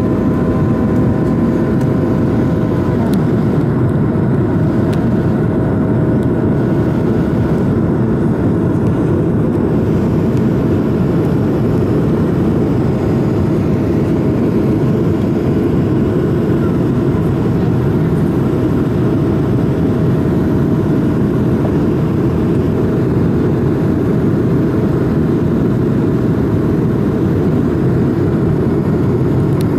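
Cabin noise of an Airbus A220 in its climb after takeoff: a loud, steady rush of its Pratt & Whitney PW1500G geared turbofan engines and the airflow over the fuselage, heard from a window seat. A few faint steady engine tones sit over the rush, some dropping out about three seconds in.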